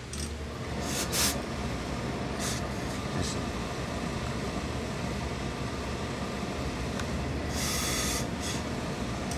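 Industrial steam iron letting out short hisses of steam while pressing a suit jacket's hem: a brief burst about a second in, two shorter ones around two and a half and three seconds, and a longer hiss near the end, over a steady low hum.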